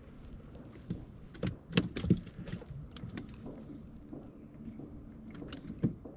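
Knocks and clicks against the hull and fittings of a small fishing boat, several close together about one and a half to two seconds in and one more near the end, over a faint steady low hum.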